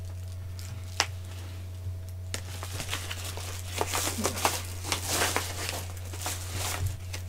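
Paper packaging crinkling and rustling as small items are handled, in a string of short bursts after a single click about a second in, over a steady low hum.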